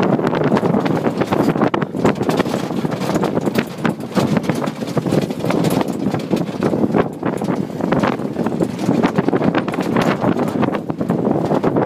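Open tour jeep driving over rough dirt ground: dense rattling and knocking as the vehicle jolts over the bumps, over a steady rumble.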